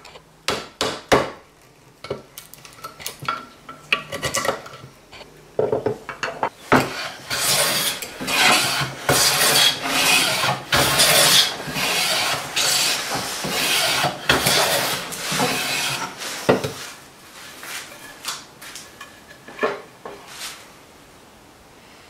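Hand woodworking on white oak: a few sharp knocks as a chisel is driven into the leg, then a long run of shearing, scraping strokes, each under a second, typical of a hand plane taking shavings off oak, then a couple of lighter knocks near the end.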